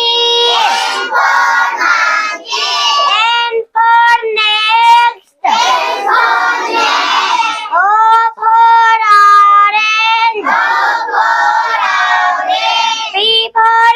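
A child's high voice singing an alphabet rhyme in held notes, broken by short pauses, with a brief break about five seconds in.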